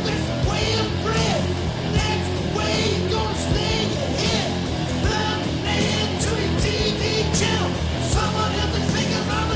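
Rock music: a singing voice over electric guitar and a steady beat.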